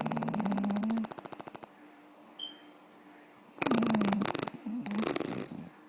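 An elderly woman snoring with a fast rattle. One snore trails off about two seconds in, and a second snore starts just past halfway and ends near the close.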